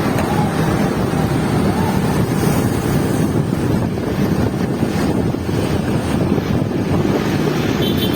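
Steady, loud wind buffeting the microphone while moving along with the race, a dense low rumble with no clear engine tone.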